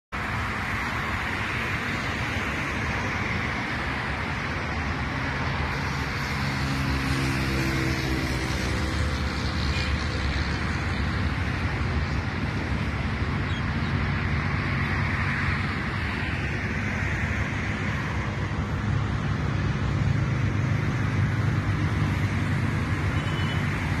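Steady road traffic noise from passing cars, with one engine's hum rising and falling in pitch about six to ten seconds in.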